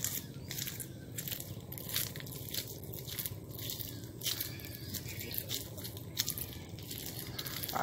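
Irregular crunching and crackling clicks, several a second, close to the microphone.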